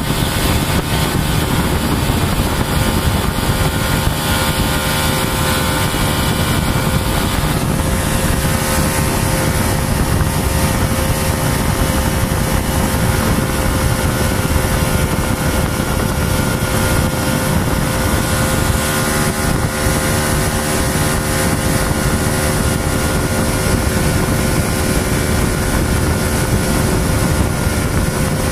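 Motorboat engine running steadily at cruising speed, a constant drone with a steady hum in it, mixed with rushing water and wind on the microphone.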